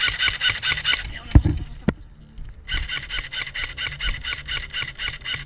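Airsoft electric rifle firing rapid full-auto bursts, a fast even ticking, with a short break about two seconds in and one heavy thump about a second and a half in.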